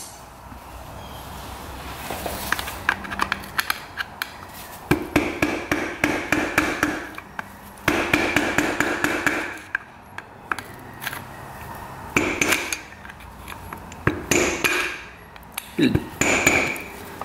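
Metal tools clicking against engine parts, then an impact wrench hammering in several bursts of a second or two, each with a steady whine and a fast rattle, working a fastener in the dirt bike's clutch loose. The fastener was done up very tight.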